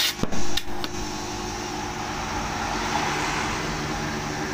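A few sharp metal clinks of a tire tool against the steel rim in the first second, then a steady hiss of compressed air filling the tire toward about 50 psi, over a low steady mechanical hum.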